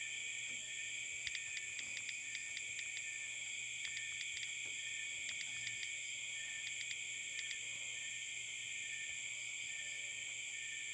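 A steady, high-pitched chorus of insects runs throughout. Over it come quick runs of short clicks from typing on a phone's touchscreen keyboard, in several bursts during the first seven or so seconds.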